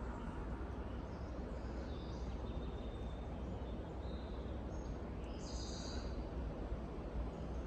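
Woodland ambience: a steady low rumbling background with a few short, high bird calls scattered through it. One brighter, trilling call comes about three-quarters of the way through.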